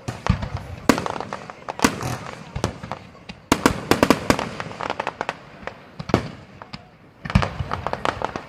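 Fireworks display: an irregular string of sharp bangs and crackles from bursting aerial shells. They come thickest about halfway through and again near the end, after a brief lull.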